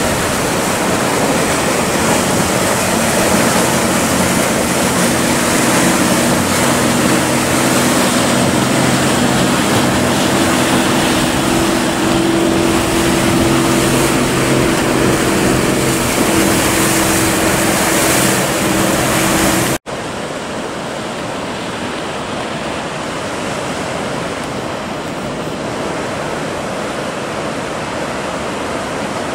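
Waves and surf rushing in choppy swell, with the steady drone of a motorboat's engine as it passes close, from a few seconds in until an abrupt cut about two-thirds through. After the cut only the sea noise is left, a little quieter.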